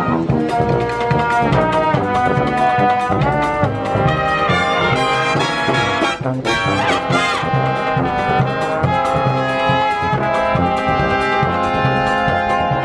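Live brass band playing: trumpets and trombones carry the tune over a steady, pulsing bass from sousaphones. A brief break comes about six seconds in.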